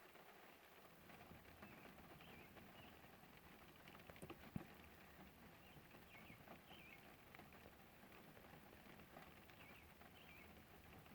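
Faint light rain pattering, with scattered drops tapping close by, and a bird chirping in short repeated calls. A few louder taps come about four seconds in.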